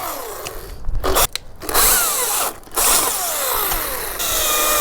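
Chainsaw cutting a holly limb in a peeling cut, the saw stopping briefly twice and its pitch dropping as it bogs in the wood.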